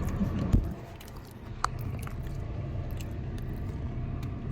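Close-up mouth sounds of someone chewing food, with scattered small crunches and clicks, over a steady low hum. A single thump about half a second in.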